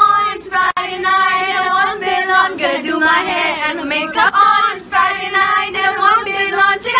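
A group of young women singing a song together without instruments, holding long notes in phrases separated by short breaths.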